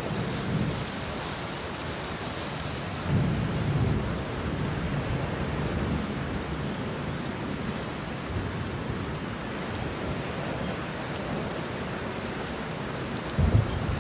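Pouring rain, a steady hiss, with a low rumble about three seconds in and another near the end.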